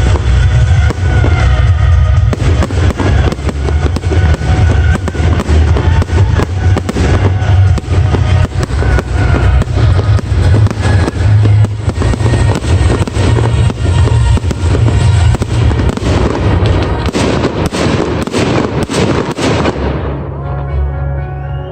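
Fireworks display: bangs and crackling over loud music with a heavy bass. The bangs come thick and fast toward the end, then stop abruptly a couple of seconds before the music quietens.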